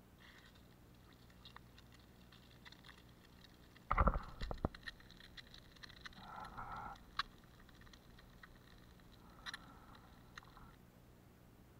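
Egg frying in a small pan over charcoal embers: a faint sizzle with scattered crackles, broken by a few loud knocks about four seconds in.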